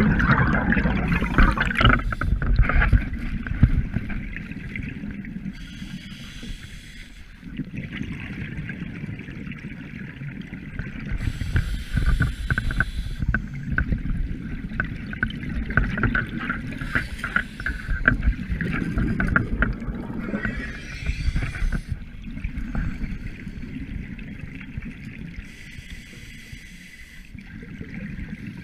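Scuba diver's regulator heard underwater: a rush of crackling exhaled bubbles comes back every five or six seconds, in the rhythm of slow breathing, over a low, steady water rumble.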